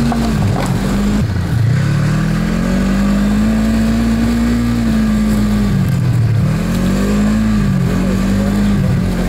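Snowmobile engine running under way, its note dropping and climbing back several times as the throttle is eased and reopened.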